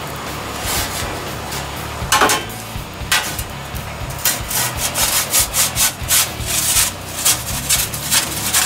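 Perforated metal pizza peel scraping across the oven's stone floor as it is pushed under the pizza: one loud scrape about two seconds in, then a series of short scrapes from about halfway through.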